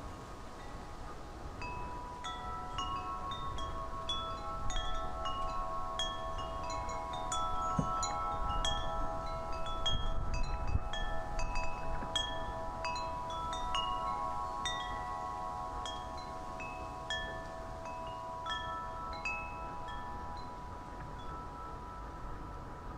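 Wind chimes ringing as the wind knocks them, struck irregularly at many pitches, each note ringing on long. The strikes come thickest and loudest through the middle stretch, over a faint low rumble of wind.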